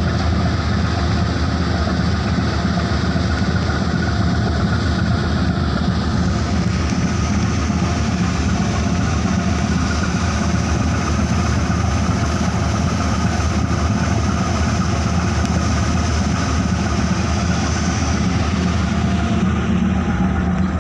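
Steady low drone of a passenger ferry's engines, with the rush of water churning along the hull mixed in.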